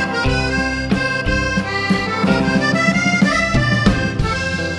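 Background music: a tune led by a free-reed instrument, with held notes over a steady rhythm of short repeated notes.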